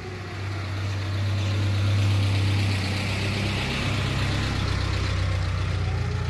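Motor vehicle engine running with a steady low hum that grows louder about a second in, over a faint civil-defence siren tone.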